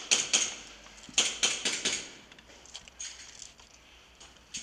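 Airsoft guns firing in quick bursts of sharp snapping shots: a short volley at the start, a longer run of about five shots about a second in, then a few fainter scattered shots.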